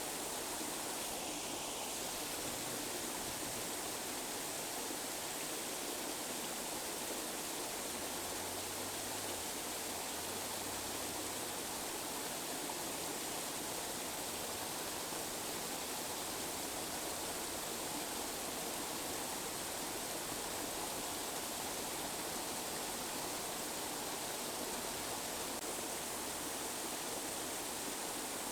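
Steady tinnitus masking noise: an even, unchanging rushing hiss from the low-mids up to very high pitches, with the deep bass cut away.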